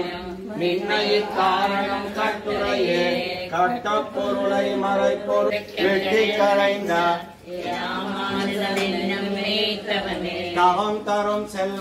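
Men's voices chanting devotional mantras together in a steady rhythmic recitation.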